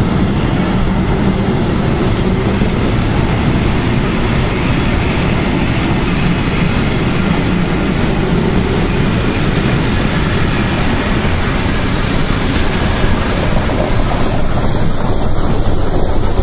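Steam locomotive hauling passenger coaches past, its exhaust and the wheels on the rails making a steady, dense noise that grows a little louder near the end.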